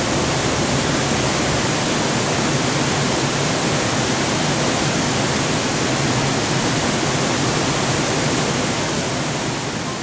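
Steady, even rushing of water with no other distinct sounds.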